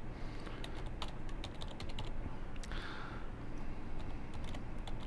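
Typing on a computer keyboard: a quick run of key clicks, with a short pause near the middle.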